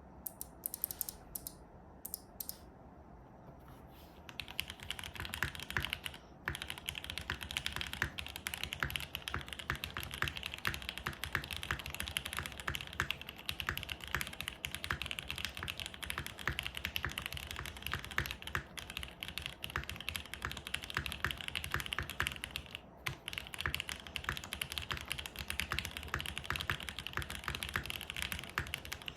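Typing on a Mode Sonnet mechanical keyboard with a carbon fibre plate, plate foam, lubed SP-Star Meteor White linear switches and GMK keycaps. A few single keystrokes come first, then steady fast typing from about four seconds in, with two brief pauses.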